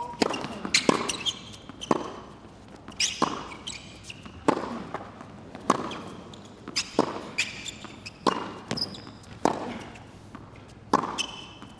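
Tennis ball struck back and forth with rackets in a baseline rally on a hard court: a sharp pop of the ball off the strings about every second and a quarter, from the serve onward.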